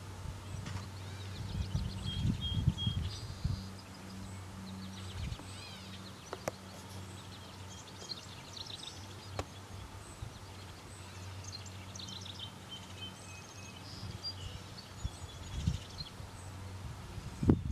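Several small birds chirping and trilling in short phrases over a faint, steady low hum, with a few low bumps about two to three seconds in and again near the end.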